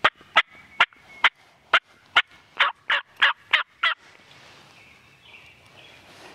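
A series of about eleven loud turkey yelps, sharp raspy notes about two to three a second, the later ones drawn out longer, stopping about four seconds in.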